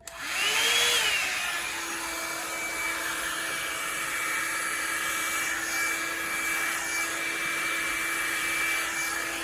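Revlon One-Step hair dryer and styler switched on at its low setting: the motor and fan spin up in the first second or so, then run steadily with an even rush of air and a steady whine.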